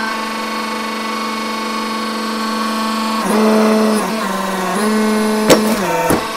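Hydraulic press's pump motor running with a steady hum that shifts pitch and grows louder a little past three seconds in as the ram comes down. A sharp crack about five and a half seconds in as hard-candy lollipops shatter under the ram, and the hum sags briefly just after as the ram bears down.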